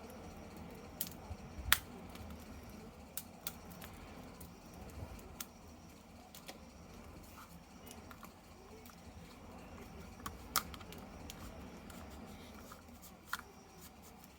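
Faint, scattered light clicks and taps over a low background hum.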